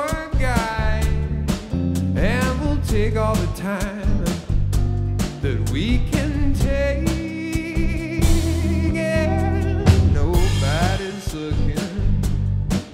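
A funk band playing live: drum kit, bass and electric guitar under a sung lead vocal.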